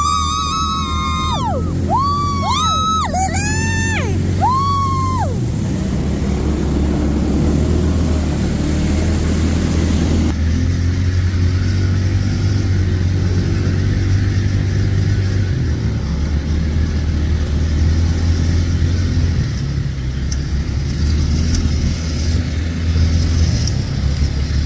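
ATV engine running with a steady low hum. Over it, in the first five seconds, a high tone slides up, holds and falls about six times.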